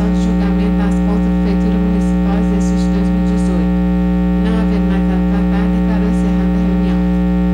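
Loud, steady electrical mains hum in the audio feed, with a voice faint beneath it.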